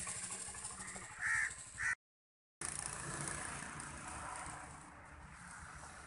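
Crow cawing twice, short and loud, about a second in, over steady outdoor background noise with a low hum. The sound cuts out completely for about half a second, then the steady outdoor ambience resumes.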